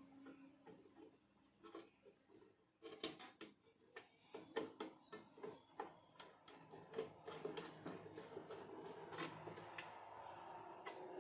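Irregular clicks and knocks of small objects being handled on a workbench, starting about three seconds in, over a faint background hum of road traffic.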